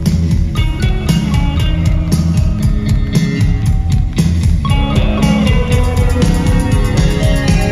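Live rock band playing loud, with electric guitars, bass and a drum kit keeping a steady beat; a held guitar melody comes in a little past halfway.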